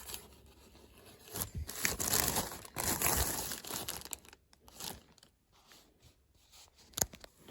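Toy packaging being handled, crinkling and rustling in two stretches about a second and a half and three seconds in, then a short sharp click near the end.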